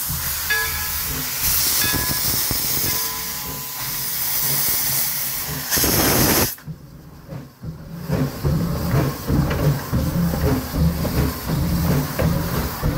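4-4-0 steam locomotive blowing steam from its open cylinder cocks in a loud, steady hiss that surges briefly and then cuts off abruptly about six and a half seconds in. After a short lull, a low, uneven rumble follows.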